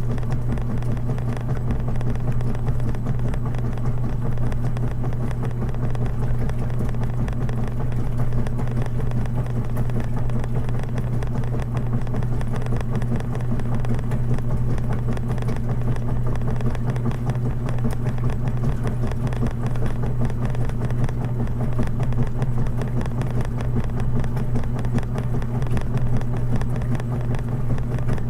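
Washing machine running, a steady low drone that holds without change.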